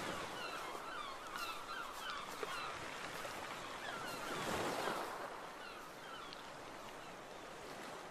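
Kayak paddles dipping and splashing in calm water, with a louder swish of water about four and a half seconds in. Birds call over it in quick, short chirps, which fade out toward the end.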